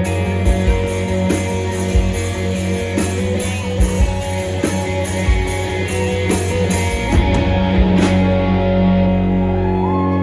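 Live band playing a song's instrumental ending on drums and electric guitar. The drum hits stop about eight seconds in, leaving a final chord ringing.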